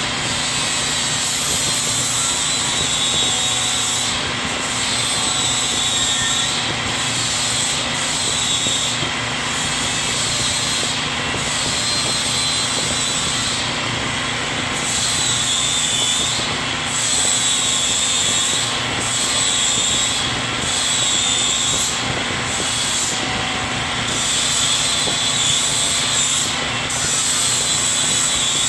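Milwaukee cordless 4-1/2-inch angle grinder running continuously with a high whine. Its pitch sags briefly every second or two as the disc is pressed into metal and loaded, then recovers.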